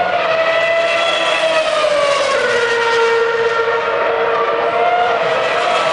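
Formula 1 cars' 2.4-litre V8 engines screaming at high revs around the circuit, one continuous high-pitched whine. The pitch drops about two seconds in, then climbs a little and falls again near the end.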